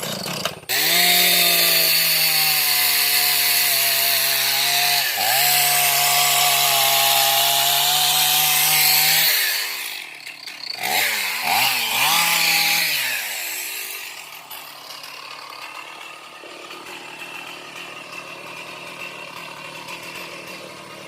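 Chainsaw running at full throttle as it cuts into a large mahogany trunk for about nine seconds, dipping briefly once midway. It then revs a few times and drops to a quieter, lower running speed.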